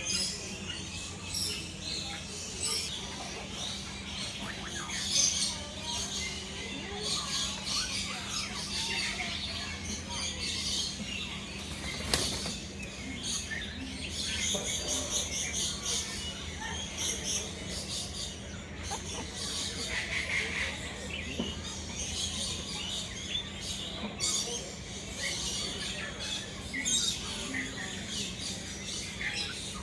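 Many birds chirping and calling at once, a dense chorus of short high calls, over a steady low hum, with one sharp click about twelve seconds in.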